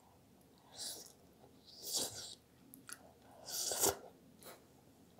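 Close-up eating sounds of a mouthful of hot, cheesy eggplant parmigiana being chewed: wet mouth clicks and smacks with several short hissing bursts about a second apart, the loudest near the end.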